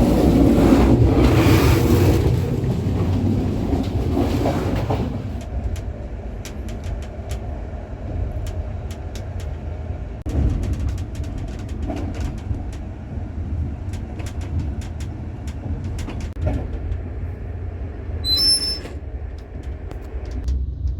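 EuroNight sleeper train running on the rails: a steady low rumble with scattered clicks from the wheels. A louder rushing noise fills the first few seconds. A brief high wheel squeal comes near the end.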